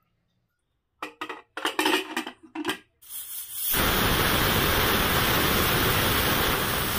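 A few clinks and knocks as potatoes are slid from a china plate into an aluminium pressure cooker, then a loud steady hiss of steam from the cooker's weight valve, its whistle, starting about three seconds in and lasting about three and a half seconds.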